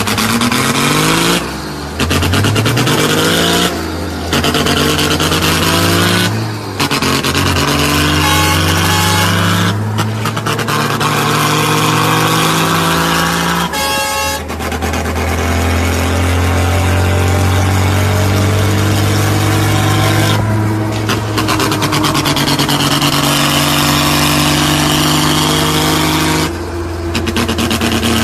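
Truck diesel engine pulling up through the gears, its pitch climbing three times with a short dip at each gear change, then running steadily at road speed. A short horn toot sounds about fourteen seconds in.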